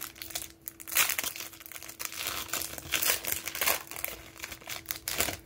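Foil wrapper of a Panini Prizm basketball card pack crinkling and tearing as it is peeled open by hand, in uneven rustling crackles that come and go.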